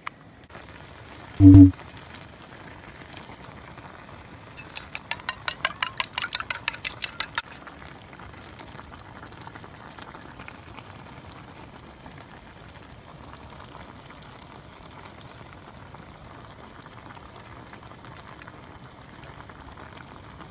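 Sukiyaki simmering in a pan, a steady bubbling sizzle. A loud thump about a second and a half in, and a rapid run of sharp clicks, about eight a second, for a couple of seconds near the middle.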